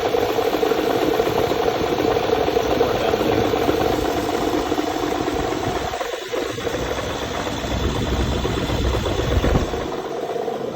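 Toyota 4Runner engine running steadily. About six seconds in the low end briefly drops away, then a low rumble swells and eases off again near the end.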